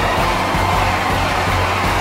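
Background music at a steady level.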